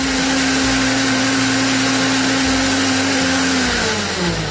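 KitchenAid K400 blender's 1200-watt motor running steadily at speed 5, blending a wet tomato chutney. About three seconds in it is switched off and winds down, its pitch falling and the sound fading.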